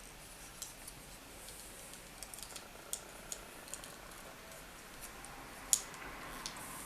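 Light plastic clicks and taps from a Transformers Power of the Primes Blot action figure as its parts are rotated and pegged together, with one sharper click near the end.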